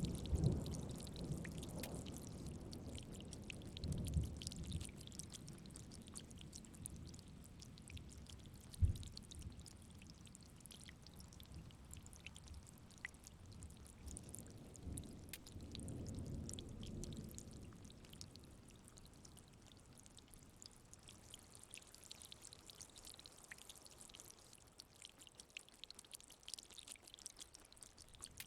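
Steady rain falling with a fine patter of drops, under low rumbles of thunder that swell near the start and again a little past halfway, with one short, sharp low thump about nine seconds in.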